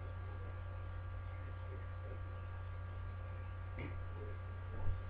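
Steady electrical mains hum with a few faint steady whine tones above it, and a short knock near the end.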